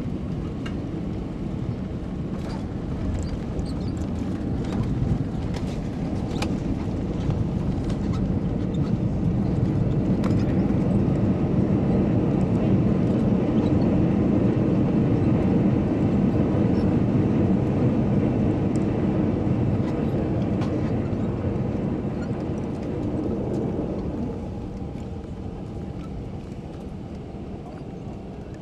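Cabin noise of an Airbus A320 on its landing rollout: a steady low rumble of its IAE V2500 engines and wheels on the runway, growing to its loudest about halfway through, then easing off and dropping again a few seconds before the end. A few faint rattles sound in the first several seconds.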